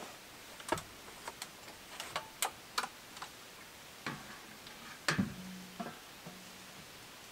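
Irregular light clicks and taps, about a dozen spread unevenly, with a sharper knock about five seconds in followed by a short low tone.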